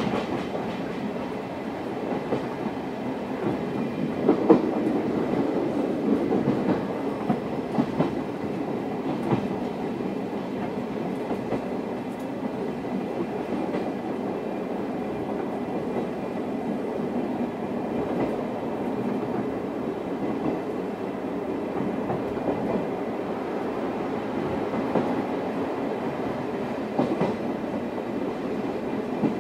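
Running noise inside a Suhafu 42 old-type passenger coach: a steady rumble of steel wheels on rail, with scattered knocks as the wheels cross rail joints.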